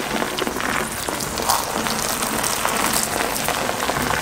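Water running steadily from a garden hose, the stream splashing into a tub full of bath foam.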